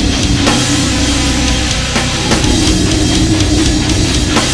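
Metalcore band recording playing: guitar, bass and a drum kit driving a heavy, dense section of the song.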